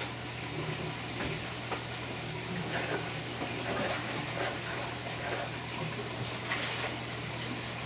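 Water running and splashing in an aquaponics fish tank over a steady low hum. Scattered small knocks and splashes come as the tank's wooden lid and water are handled, with one sharper splash or knock near the end.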